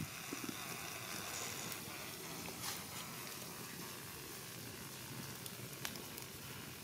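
Stuffed freshwater snails grilling on a rack of sticks over a fire: a steady soft sizzle of juices bubbling in the shells, with a few sharp pops.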